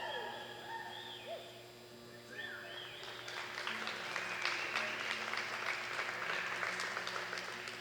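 Audience applauding after a reining run. The clapping swells from about three seconds in, with a few short cheering calls in the first seconds.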